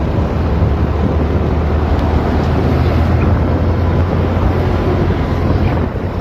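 Steady engine and road noise of a moving vehicle at road speed, with a strong low drone and wind buffeting the microphone.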